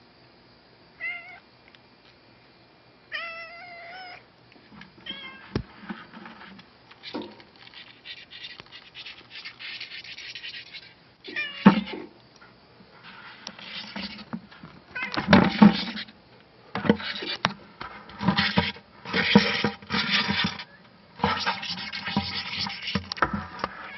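Pine sawyer beetles stridulating: short squeaky chirps with a wavering pitch at first, then a run of rasping bursts that come more often and louder in the second half.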